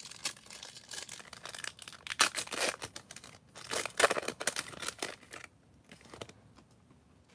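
Foil wrapper of a Topps Chrome trading card pack being torn open and crinkled by hand, stopping about five and a half seconds in.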